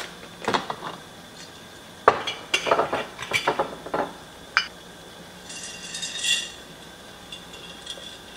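Clinks and knocks of glass storage jars and a crinkly plastic bag of dry pasta being handled, a quick string of sharp knocks over the first few seconds, then a short rustle about six seconds in.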